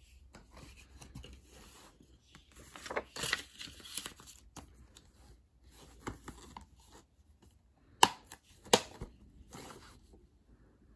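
Handling of a plastic DVD case and its paper insert: rustling and scraping, then two sharp plastic clicks from the case about eight seconds in, less than a second apart.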